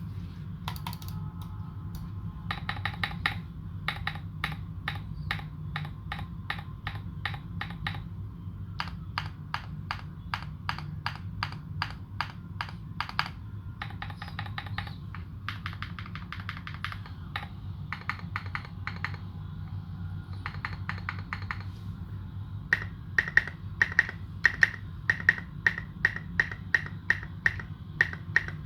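Typing on a Morgan65 custom mechanical keyboard with fully modded Holy Panda tactile switches and SA-profile keycaps: quick runs of keystrokes in bursts with short pauses. About three-quarters of the way through it changes to slower, louder, evenly spaced strokes, about two a second. A steady low hum sits underneath.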